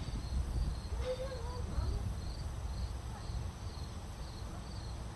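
Crickets chirping outdoors in a steady rhythm, about two chirps a second, over a constant low rumble. A faint voice is heard briefly about a second in.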